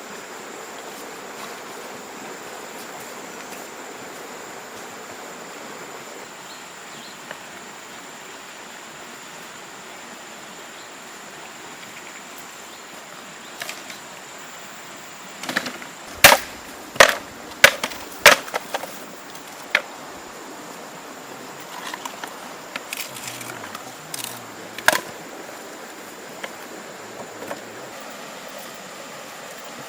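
A run of sharp wooden knocks, about a dozen in four seconds a little past the middle, then a few scattered ones, over a steady hiss with a thin high whine.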